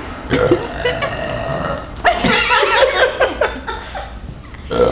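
Loud, deliberate belches made for a burping contest, trying for a deep 'trucker burp'. There is a short one near the start, then a long drawn-out one from about two seconds in, and another begins right at the end.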